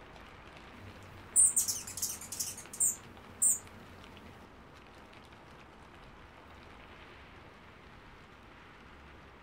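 Female hummingbird chirping: a quick cluster of high, sharp chips, then two single chips, all within about two seconds, over the steady hiss of rain.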